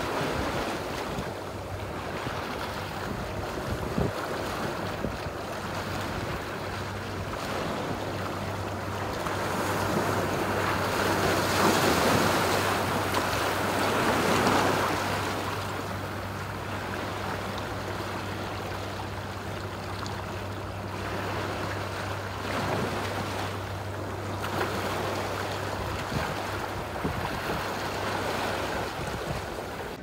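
Lake Superior waves washing over shoreline rocks and surging into a rock pool, a continuous wash that swells loudest around the middle. A steady low hum runs underneath.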